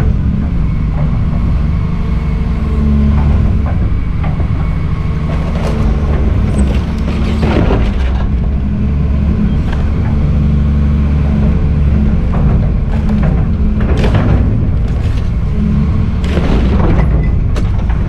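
Volvo EC210CL excavator's diesel engine running steadily under hydraulic load. Crunches and clanks of the bucket on the crushed refrigerator's sheet metal come about a third of the way in, again past the middle, and near the end.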